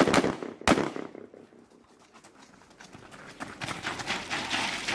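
Two gunshots about two-thirds of a second apart, each with a short echo. After a lull of about two seconds comes a busier crackle that builds toward the end, running footsteps on wet gravel.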